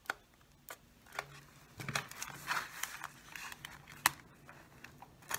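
Thin soda-bottle plastic being handled and pressed: scattered clicks and crinkles as a freshly hot-glued strip is held onto the shield, with a brief crinkle between two and three seconds in and a sharp click about four seconds in.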